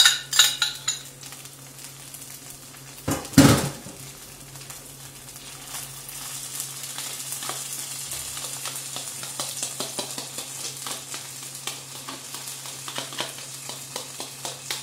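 Soaked wheat grains tipped from a plastic colander into a pan of hot olive oil: a loud rush about three seconds in as they land, then steady sizzling as they start to toast. A spoon taps and scrapes against the colander over the sizzle.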